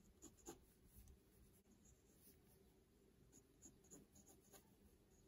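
Faint scratching of a Kaweco AL Sport mechanical pencil's 0.7 mm graphite lead on sketchbook paper, in short, irregular strokes.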